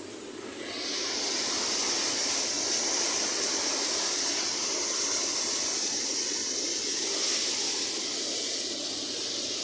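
Steady rush of heavy rain and wind in a violent storm, an even hiss with no breaks.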